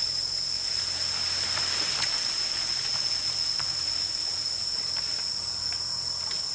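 Steady high-pitched drone of an insect chorus, with a few faint clicks and snaps scattered through it.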